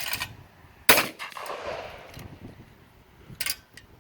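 A single shotgun shot at a thrown clay target about a second in, its report fading away over the next second or two; a shorter, quieter burst of noise comes near the end.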